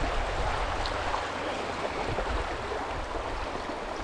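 Creek water running steadily over rocks, an even rushing wash, with a low rumble underneath.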